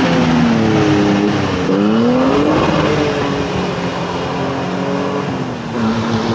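Off-road 4x4's engine revving under load as it works through an obstacle on the trail. The pitch drops and then climbs again about two seconds in, then holds fairly steady.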